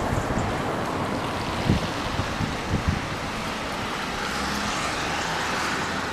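Wind buffeting the microphone, with several low thumps in the first three seconds. From about four seconds in, a car's tyres hiss on the wet road as it pulls up to the crossing.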